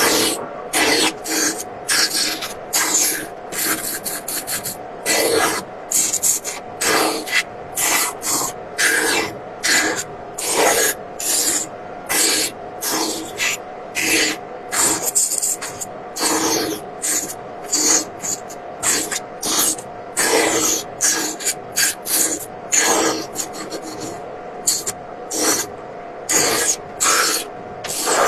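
A hand tool scraping wood in repeated strokes, about one to two a second, like rasping or filing, over a faint steady hum.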